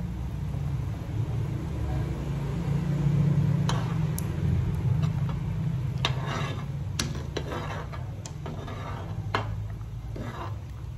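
Metal ladle stirring moringa pods in a pot of boiling soup, clinking and scraping against the pot several times from about four seconds in, over a steady low rumble.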